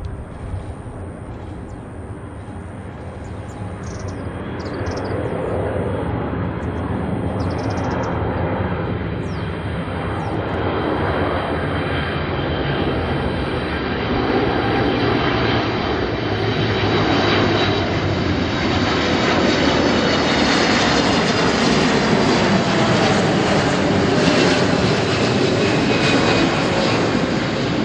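Japan Airlines Boeing 777-300's twin turbofan engines on landing approach: a jet roar with a high fan whine that grows steadily louder as the airliner draws near.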